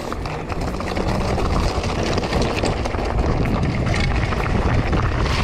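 Lapierre Zesty AM 3.0 mountain bike rolling fast down a rocky dirt trail: tyres crunching over stones and the bike rattling over the bumps, with wind rumbling on the camera microphone. It gets louder about a second in.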